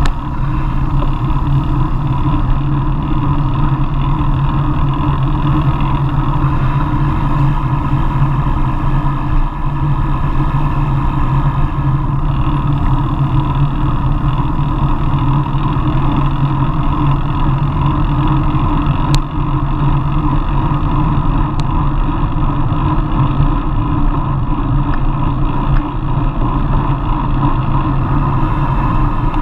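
Steady rush of wind and road noise picked up by a bike-mounted action camera on a road bike riding in a group, with a single sharp click about 19 seconds in.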